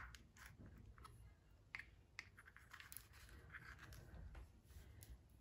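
Near silence with a sharp click at the start, then a few faint scattered clicks and light scratching, small handling noises.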